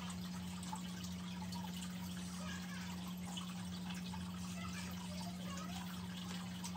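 A steady low hum at an even level, with faint scattered higher sounds over it.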